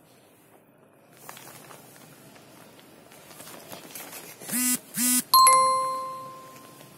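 Two short electronic buzzes, then a single bell-like ding that rings out and fades over about a second and a half, over faint rustling and handling.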